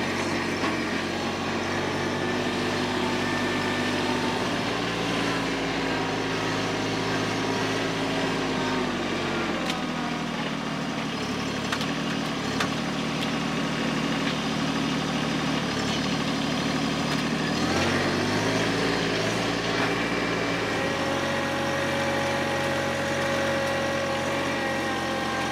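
TYM T264 compact tractor's diesel engine running as it works a front-loader grapple, steady throughout. The engine speed drops about nine seconds in and comes back up around eighteen seconds.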